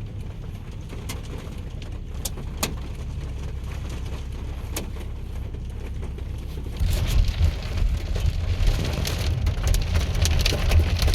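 Car cabin road rumble with a few scattered sharp ticks of drops on the car. About seven seconds in, hail and rain suddenly start pelting the roof and windshield in a dense, loud patter.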